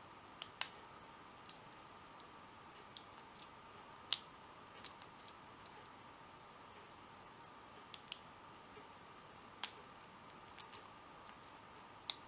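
Sparse sharp clicks of a hook pick working the pin stack of an Abus 71/40 padlock under light tension, pins setting one by one during single-pin picking. About five louder clicks come spread over several seconds, with smaller ticks between them.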